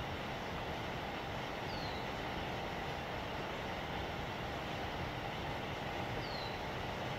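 Steady outdoor background rumble and hiss, with two short, high, falling chirps: one about two seconds in, one near the end.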